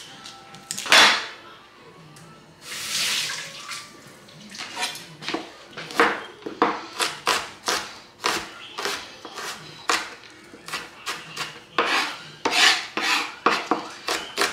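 Chef's knife chopping an onion on a plastic cutting board: an irregular run of sharp knocks of the blade on the board, about two or three a second, starting about four seconds in.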